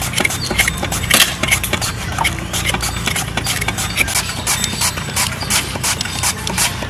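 Raw potatoes being peeled by hand, a kitchen knife and then a swivel peeler scraping off the skin in a quick, irregular run of short scraping strokes.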